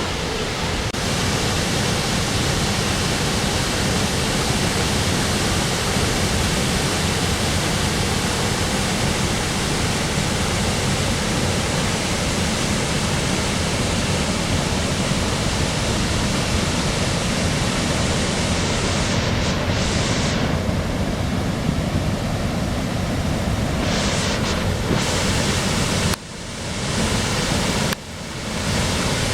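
Waterfall: a loud, steady rush of falling water that breaks off abruptly twice near the end.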